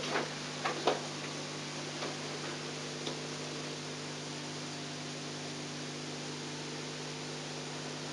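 Steady hiss and mains hum of a digitized VHS soundtrack, with a few faint clicks in the first second and one more about three seconds in.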